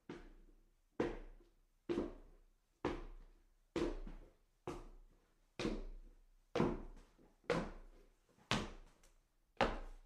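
Footsteps climbing a flight of stairs at a slow, steady pace: eleven heavy treads in a row, about one a second, each a dull knock with a short room echo.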